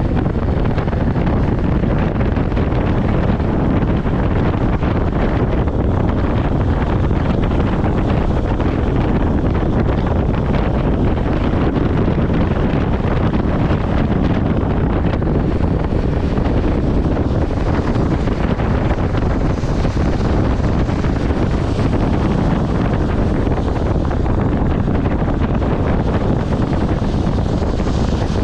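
Steady rushing noise of wind buffeting the microphone, heaviest in the low end and unchanging throughout.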